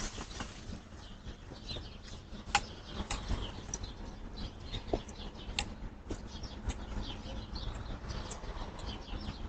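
Outdoor ambience picked up by a doorbell camera's microphone: a steady low rumble with many short, scattered chirps and ticks.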